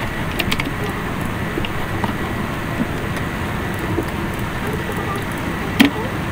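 Sped-up recording of the room at the computer: a dense, steady, flickering rush of noise, with scattered short clicks and one sharper click near the end.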